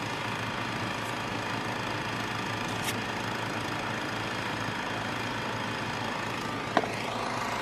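Steady running of idling 4x4 engines with an even hiss, as air is let out of the tyres to soften them for driving on sand. Two short clicks, the louder one near the end.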